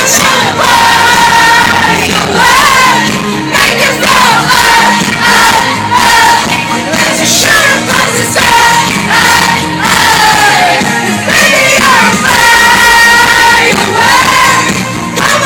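Live pop concert heard from within the audience: a loud band with singing held on long notes, and the crowd's voices singing along.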